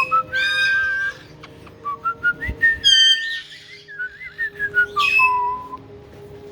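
Caique parrots whistling and calling: short, shrill whistled notes, some sliding up or down in pitch, in bursts near the start, around three seconds in and again around five seconds in.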